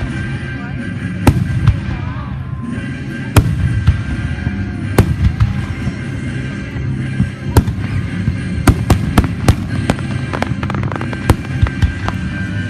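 Fireworks going off: single sharp bangs every second or two, then a quick cluster of several bangs about two-thirds of the way through, over a steady low rumble.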